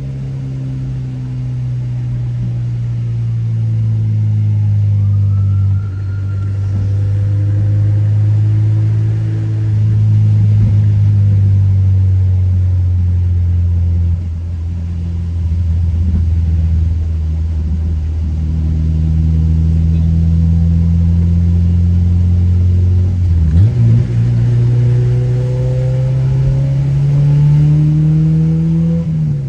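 Car engine running under way, its note slowly falling and holding steady, then dropping suddenly about three-quarters of the way through, climbing again and dropping once more at the end, as with gear changes while driving.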